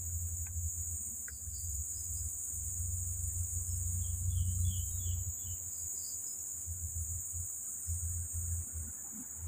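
Steady high-pitched drone of crickets or other insects, with a low rumble underneath and a short run of quick faint chirps about four seconds in.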